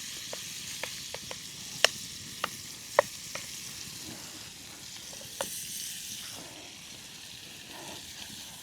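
Chicken frying in a pan over a campfire: a steady sizzling hiss with scattered sharp clicks and pops, the loudest two about two and three seconds in.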